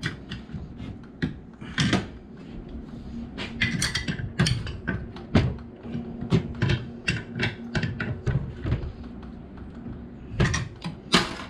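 Irregular metal clicks and knocks of hands working on metal parts, a bolt being fitted through the pivot of a homemade grass chopper.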